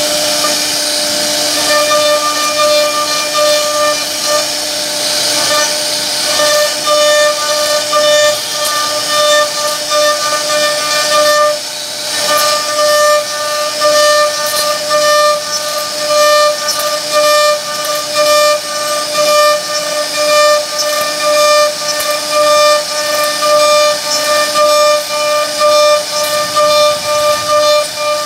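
CNC router spindle whining steadily on one pitch while its bit carves relief into a wooden panel, with a hiss of wood being cut. In the second half the loudness swells and dips about once a second as the bit moves along the cut.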